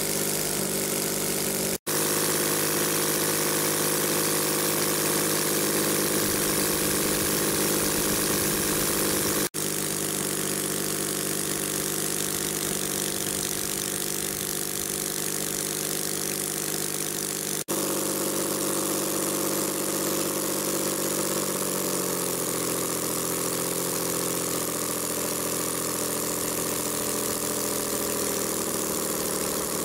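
Scratch-built three-cylinder two-stroke radial engine with rotating cylinders and spark ignition running steadily. Its pitch dips and shifts in the last several seconds as its speed changes, and the sound breaks off momentarily three times.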